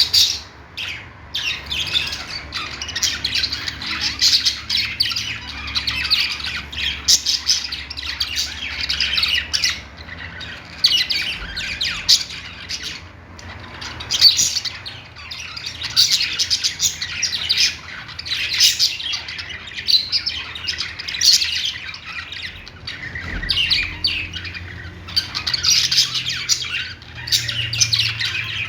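Pet budgerigars warbling and chirping in a continuous chatter of quick, high notes, with louder squawky bursts every second or two.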